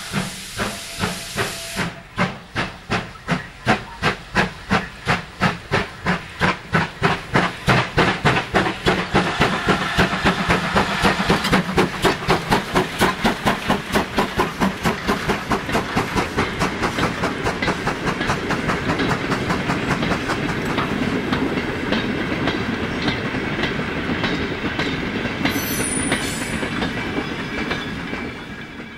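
Steam locomotive hauling a goods train past: a hiss of steam for the first couple of seconds, then sharp exhaust chuffs, about two a second and quickening, loudest as the engine goes by. The chuffs then give way to the steady noise of the goods wagons rolling past on the rails.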